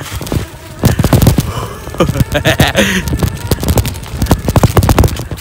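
Rapid, irregular knocking and rattling of an electric bike jolting over rocky ground, mixed with bumps on the handheld phone's microphone, starting about a second in.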